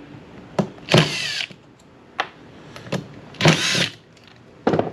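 Power drill run in two short bursts, about a second in and again about three and a half seconds in, its motor whine shifting in pitch. Sharp clicks of small parts being handled fall between the bursts.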